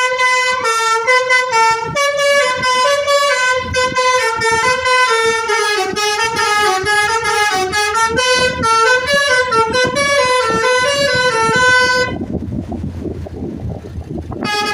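Musical 'telolet basuri' air horn on a Jetbus 3+ coach playing a quick tune of short stepped notes, stopping about twelve seconds in; a low rumbling noise remains after it.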